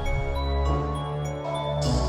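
Background music: sustained synth chords over a steady bass, with light mallet-like notes.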